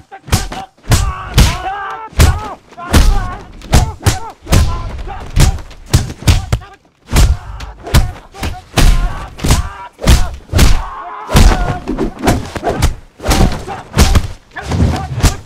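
Film fight sound effects of a rapid hand-to-hand exchange: punch and kick impacts land in quick succession, about two or three a second. The fighters' shouts and grunts come between the blows.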